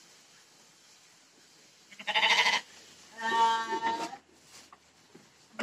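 Sheep bleating twice, about two and three seconds in; the second call is longer, about a second.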